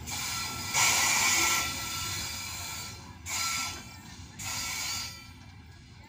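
Long freight train of open wagons rolling away along the track, with three bursts of high-pitched hissing screech, the loudest about a second in; it fades down near the end.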